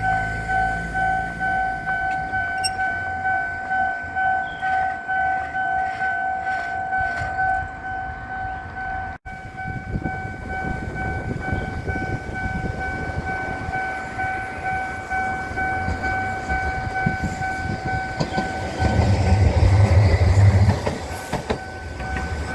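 Japanese level-crossing warning bell ringing in a steady pulsing repeat while a train rumbles through the crossing, the rumble loudest a few seconds before the end.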